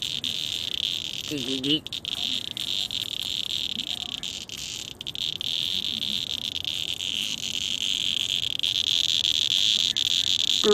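Cicada held by its wings, singing a loud, continuous high-pitched buzz that dips briefly about two and five seconds in.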